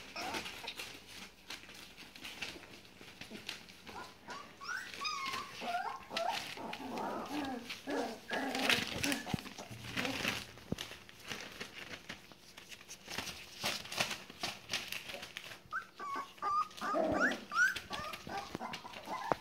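Young border collie puppies, about four weeks old, giving short high whimpers and yips here and there, with a cluster of calls near the end. Between the calls comes crackly rustling of newspaper bedding as the puppies scramble over it.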